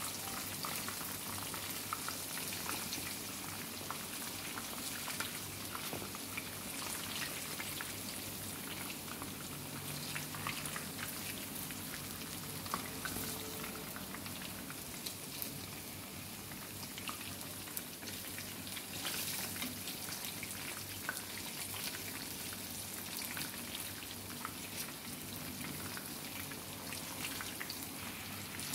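Chicken tenders frying in hot oil: a steady sizzle dotted with many small irregular pops and crackles.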